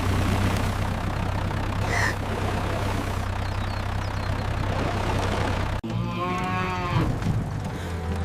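A cow mooing once near the end: one long low call that drops in pitch as it fades. Before it, a steady low rumble runs until it cuts off abruptly.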